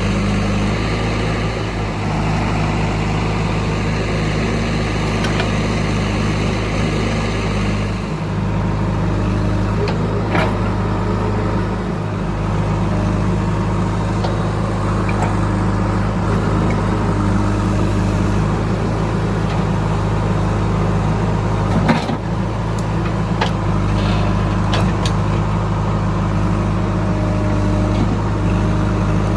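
JCB 3DX backhoe loader's diesel engine running steadily while it works, with a few sharp knocks; the loudest comes about three-quarters of the way through.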